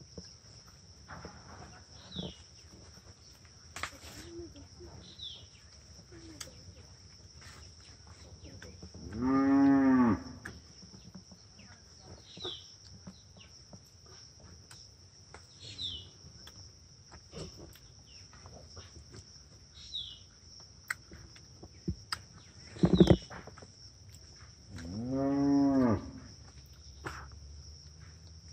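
A cow mooing twice, each moo about a second long and rising then falling in pitch, over a steady high insect drone.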